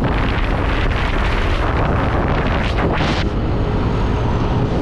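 Steady engine and road rumble of a moving vehicle, heard from on board.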